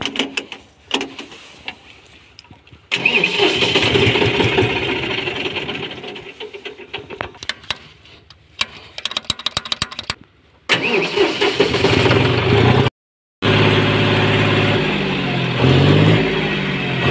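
John Deere 5105 tractor's three-cylinder diesel engine being started and then running, revved up and down several times near the end. There is a brief silent gap about halfway through.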